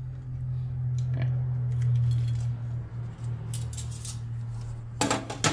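Grilled prawns being moved from a foil-lined tray onto a plate with utensils: light clicks and clinks, then two sharp clacks near the end, over a low steady hum.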